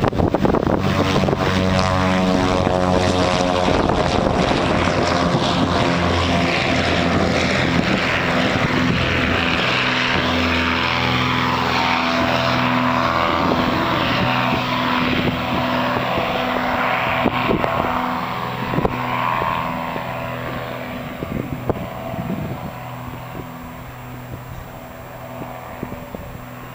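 Propeller engine of a light survey aircraft on its takeoff run and climb-out, a steady pitched engine drone that grows fainter over the last several seconds as the plane flies away.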